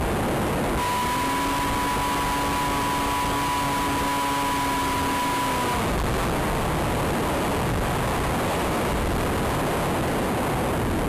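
Small electric motor of an Aerobird Challenger RC plane whining at a steady pitch over constant hiss. About a second in the motor spins up, and near the middle its pitch drops and it cuts off, leaving only the hiss.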